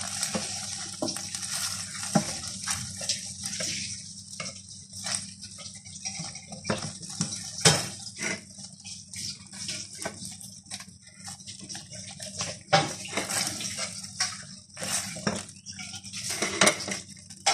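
Silicone spatula stirring thick chilli sauce around a frying pan, giving irregular scrapes and soft knocks against the pan over a steady light sizzle of the sauce cooking.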